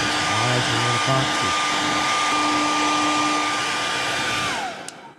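A handheld hot-air dryer blowing on a freshly airbrushed fishing lure to dry the paint, its fan running steadily with a whine, then winding down and stopping near the end.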